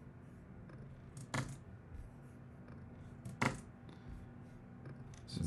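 Two sharp clicks at a computer, about two seconds apart, from the notebook cells being run, over a faint low hum.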